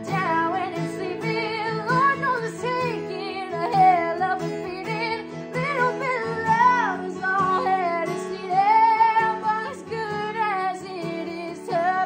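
A woman singing with sliding, bending vocal runs over a strummed acoustic guitar.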